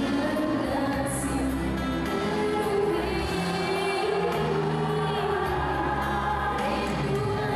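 A woman singing a Malay pop song live into a microphone over backing music, heard through the stage PA.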